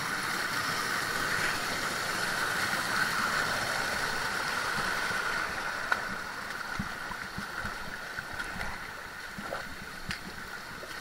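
Steady rush of running water from a stream or waterfall, easing a little about halfway through, with a few faint knocks in the second half.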